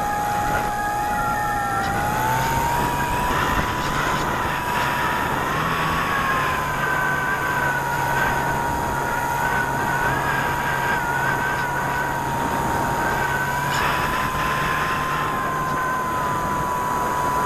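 Electric brushless motor and propeller of an E-flite Apprentice S 15e RC plane, heard from the onboard camera in flight: a steady whine that rises in pitch about two seconds in and then holds, over rushing wind noise.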